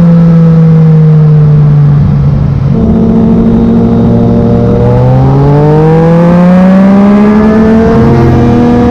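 Yamaha MT-09 three-cylinder engine through a Black Widow carbon full exhaust, under way. The note sags slightly at first and breaks briefly about two seconds in, then holds and climbs steadily as the bike accelerates through the second half.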